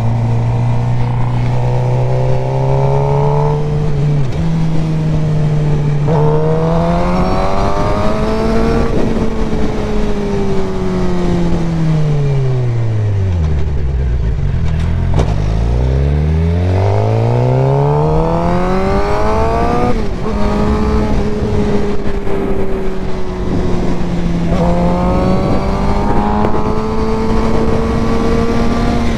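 Sport motorcycle engine heard from the rider's seat, revving up through the gears with a sudden drop in pitch at each upshift. About halfway through it slows, the pitch falling low, then it accelerates and shifts up again.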